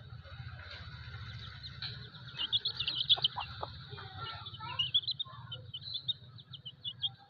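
Baby chicken chick peeping: a quick flurry of high chirps about halfway through, then a string of separate peeps, over a low steady hum.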